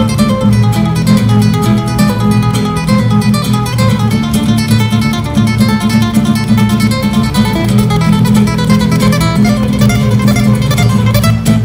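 Two acoustic guitars playing together, a rapid stream of picked notes over a steady low accompaniment.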